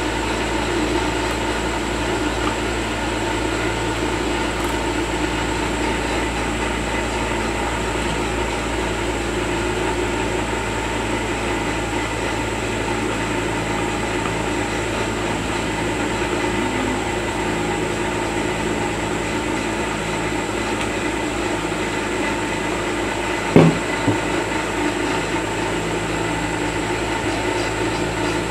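Powered-on IGBT inverter welding machine giving a steady hum with several held tones. A single sharp crack comes about 23 seconds in.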